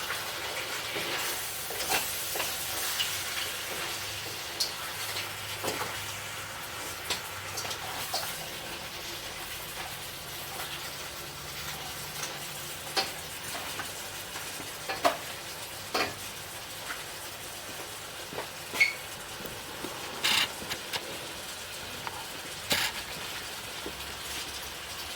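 Fried rice sizzling in a pan while it is stirred, with a spoon clicking and scraping against the pan now and then.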